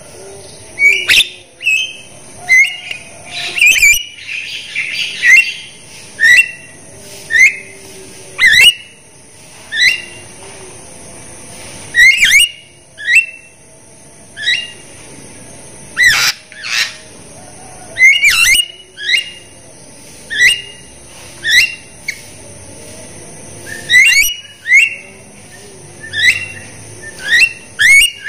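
Javan myna (jalak kebo) calling over and over, short, sharp, loud notes about once a second, each a quick upward note, with a harsher stretch a few seconds in.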